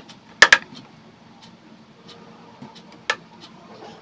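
Sharp clicks and small ticks of wire being handled, as stripped wire ends are twisted together by hand: a close pair about half a second in, a single click about three seconds in, and fainter ticks between.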